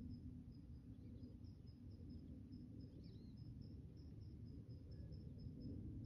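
Faint, rapid high chirps from a small songbird, about three or four a second, with one short curling call partway through, over a low steady rumble.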